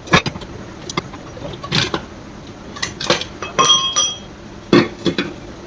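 Metal tools and engine parts clinking and knocking against each other, a string of sharp separate clinks, one of which rings briefly just under four seconds in.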